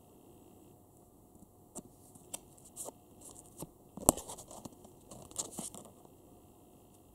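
Small holographic stickers being peeled off their paper backing by hand: a run of crackles and small snaps. The sharpest snap comes about four seconds in.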